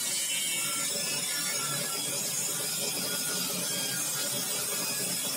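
Table saw running steadily while its blade cuts through a small block of wood fed with a push stick.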